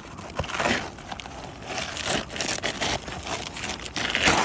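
Roof shingles in bad condition crackling and scraping as they are pried up to pop the nails, a string of rough bursts that is loudest near the end.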